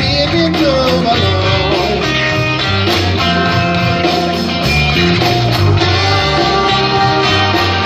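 Instrumental music with guitar over a steady bass line.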